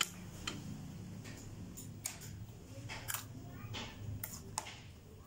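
Clear slime squeezed and pressed by hand in a glass bowl, making irregular sharp clicking pops, about two a second.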